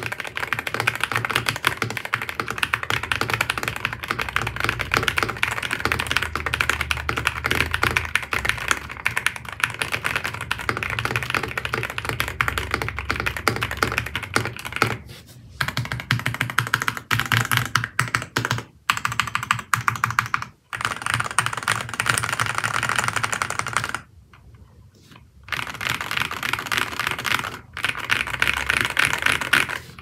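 Typing on a Sugar65 aluminium-case mechanical keyboard fitted with Durock linear switches: a dense, steady run of key clacks. A few short pauses come past the middle, and a break of about a second and a half comes about three-quarters of the way through.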